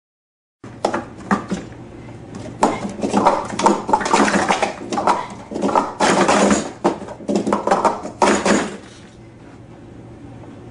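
Plastic sport-stacking cups clattering rapidly as they are stacked up and brought down on the mat, in quick runs of sharp clacks. The clatter stops abruptly about nine seconds in.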